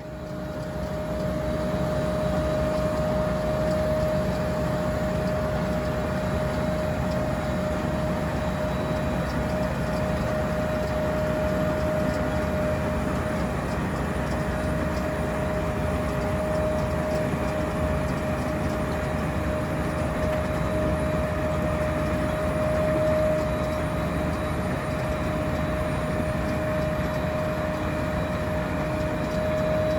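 Potato harvester and tractor machinery running steadily, with a constant high whine over a low engine rumble.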